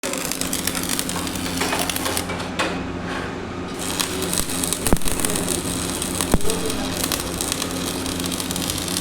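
Electric arc welding: the arc's steady crackling hiss over a low, steady hum. The arc stops for about a second around three seconds in, then strikes again, and two sharp clicks come about five and six and a half seconds in.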